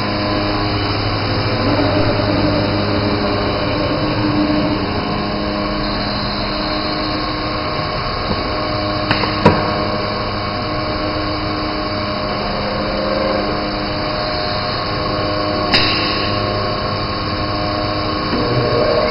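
Automatic tool-change CNC router running with a steady machine hum, broken by two sharp clicks, one about halfway through and one near the end.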